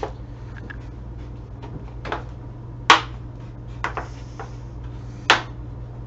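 A hard plastic bucket lid being handled and worked, giving a few sharp knocks and clacks, the loudest about three seconds in and again near the end, over a steady low hum.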